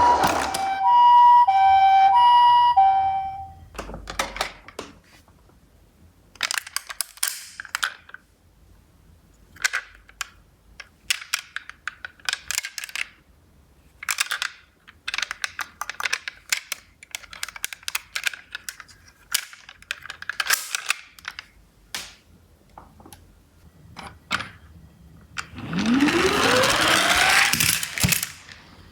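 Toy ambulance's electronic two-tone siren, the Japanese-style hi-lo "pee-poh" alternating between two pitches, for about the first three seconds. Then small toy cars clatter and rattle in short bursts as they roll. Near the end comes a loud rising sweep.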